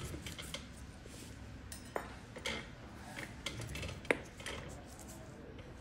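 Scattered small, sharp metallic clicks from handling steel pedicure instruments, the loudest about four seconds in.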